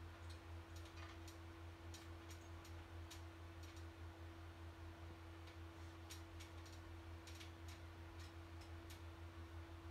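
Near silence: a steady low electrical hum with a faint steady tone over it, and faint soft clicks at irregular moments.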